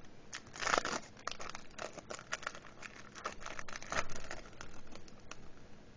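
Foil trading-card packet being torn open and crinkled in the hands, an irregular run of crackles, then the cards being pulled out of it.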